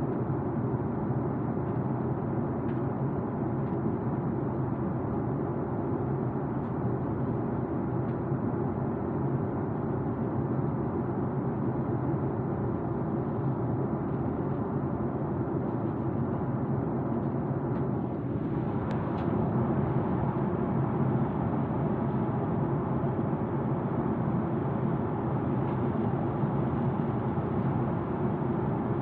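Steady rush of jet airliner cabin noise in cruise flight, heard from inside the cabin at a window seat.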